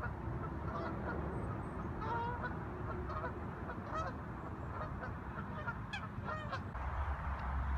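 Geese honking, many short calls in quick succession, over a steady low rumble that grows louder near the end.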